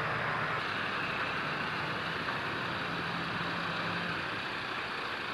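Crane's engine running steadily during the lift, an even mechanical noise with a low hum.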